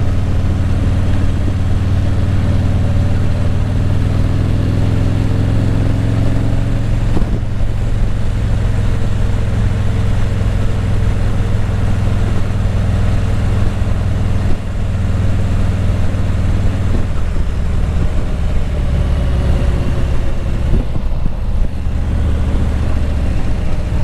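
Motorcycle engine running steadily under way, a continuous low drone; its note shifts slightly a little past halfway through.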